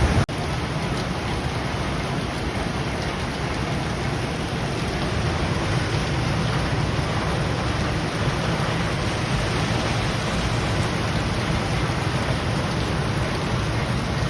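Steady, loud rushing noise of water, with a heavy low rumble and no breaks.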